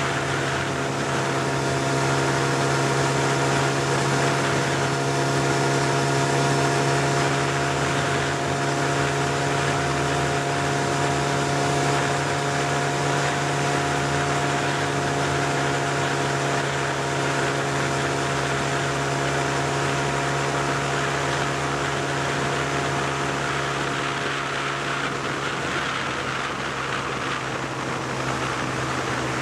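Vehicle engine running steadily at cruising speed, a constant hum that holds one pitch, with wind and road noise over it.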